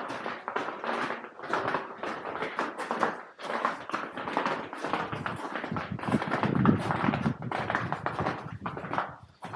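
Footsteps crunching on ice and snow, a steady run of irregular steps.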